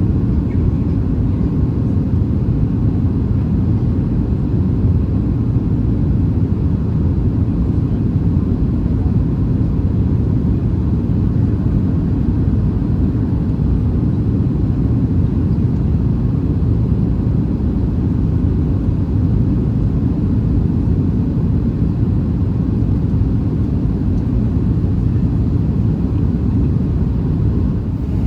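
Steady low rumble of a Boeing 737-700 in flight, its CFM56-7B jet engines and the airflow heard from inside the cabin, even in level with no thump or sudden change.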